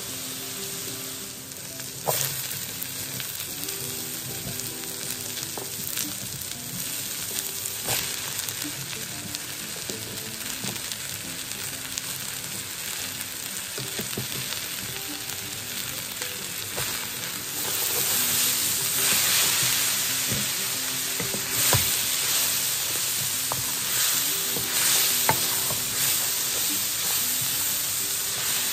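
Taro-leaf stems, onions and garlic sizzling in a wok, a steady frying hiss that gets louder about two-thirds of the way through. A few sharp clicks sound over it.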